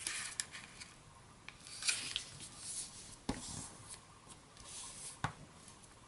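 A large sheet of origami paper being handled, folded and creased by hand: faint rustling and sliding of paper, with a short sharp tick about three seconds in and another just after five seconds.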